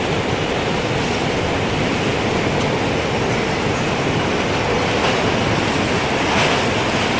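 Strong wind blowing in a steady rush with a deep rumble, swelling slightly near the end, with a few faint wind-chime tones ringing through it.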